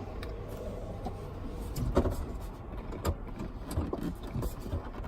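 Plastic dashboard trim panel being worked loose by hand: scattered clicks and knocks of plastic and clips, the loudest about two seconds in.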